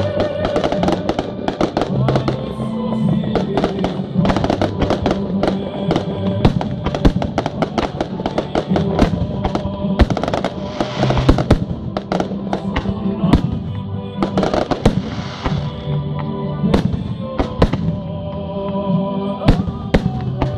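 Fireworks going off in rapid, irregular bangs and crackles over music with steady held notes.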